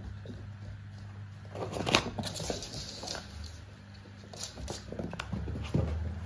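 Cats' paws patting and scampering on a wooden floor and foam play mats, with scattered knocks and taps, the loudest about two seconds in and a cluster near the end, over a faint steady low hum.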